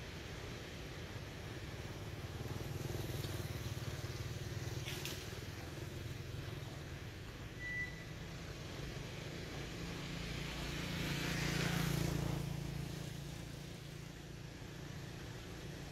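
A motor vehicle's engine passing by, its low rumble swelling twice and fading: a small swell about three seconds in and a louder one about twelve seconds in. A single short high peep sounds about eight seconds in.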